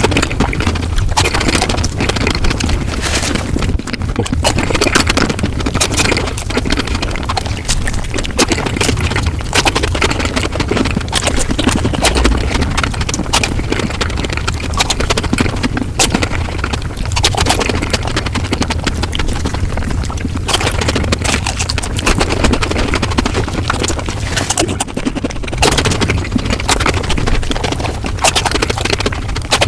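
Mukbang eating sounds sped up about five times: chewing, crunching and mouth smacks run together into a fast, dense stream of clicks.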